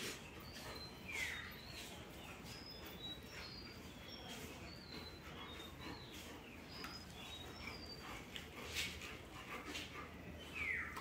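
Faint, high bird chirps repeating throughout, with two short falling calls, one about a second in and one near the end, over scattered light clicks.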